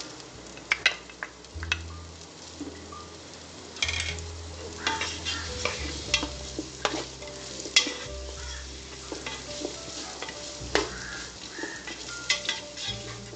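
Wooden spoon stirring chopped shallots and onions frying in oil in a metal pot: a light sizzle with repeated clicks and scrapes of the spoon against the pot.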